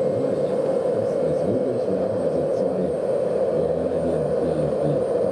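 JetCat PHT3 model turbine powering a large RC scale MH-53 helicopter on the ground while the rotors spin up, giving a steady drone with a faint high turbine whine that steps up slightly in pitch about halfway through.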